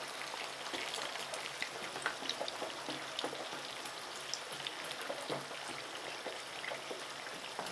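Potato wedges deep-frying in hot oil in a frying pan: a steady soft sizzle with small scattered pops. The oil has gone a little quiet because the cold raw potatoes were just added and have cooled it.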